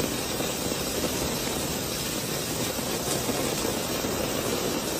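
Heavy rain pouring down: a steady, even rush of falling water.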